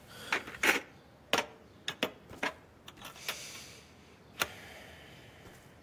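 Tools and a plastic toolbox being handled and packed up: a string of about eight sharp, uneven clicks and clacks, with a louder one near the end.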